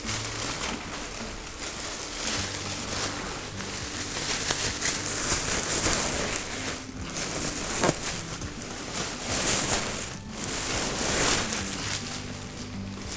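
Rustling, scraping and tearing of old, rotten floor carpet and underlay being pulled up inside a classic Mini's shell, with faint background music underneath.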